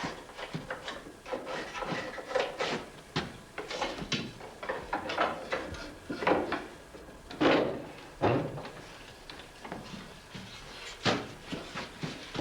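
Irregular wooden knocks and short scrapes as parts of a wooden saddle frame are handled and worked by hand, with a few longer scraping strokes in the middle.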